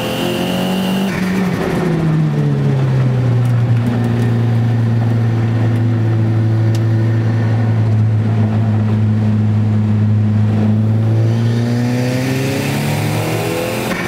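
Nissan Gazelle's turbocharged CA20DET four-cylinder engine heard from inside the cabin on track. The engine note drops in the first couple of seconds, holds a steady pitch through the corner, then climbs again near the end as the car accelerates. A thin high whine stops about a second in.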